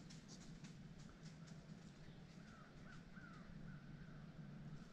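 Near silence, with a few faint, short bird calls repeated in the middle.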